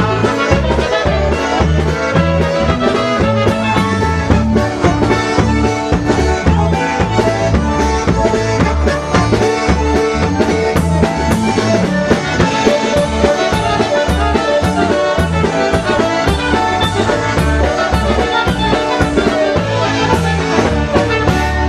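Live polka band playing a polka, accordion leading over a steady bouncing beat of bass and drums.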